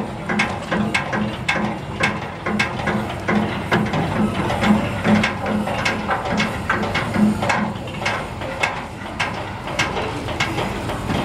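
Slow diesel boat engine chugging with a steady knock, about three beats a second.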